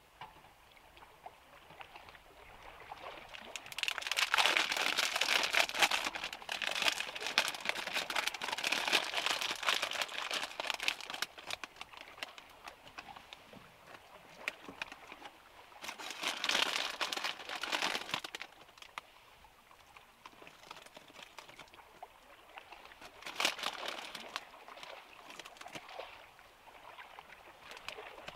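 Plastic snack-style bag of shredded cheese crinkling and rustling as it is handled, in several bursts a few seconds long with quieter stretches between.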